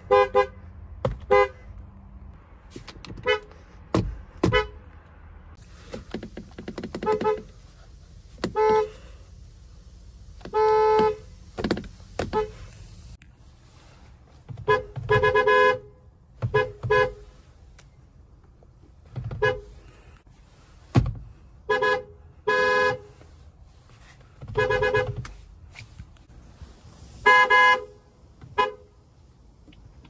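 BMW car horns, heard from inside the cabin, sounded by pressing the steering-wheel horn pad. They come as a string of about twenty honks, mostly short taps with a few longer honks of about a second, from several different cars.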